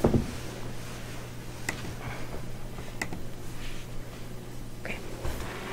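Quiet room tone with a steady low hum and a few faint, short clicks.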